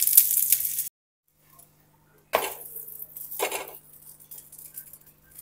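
Ghee sizzling under a flipped kulcha on a hot tawa, cutting off about a second in. Then two scraping strokes of a metal spatula against the tawa, about a second apart, with faint crackling under a low steady hum.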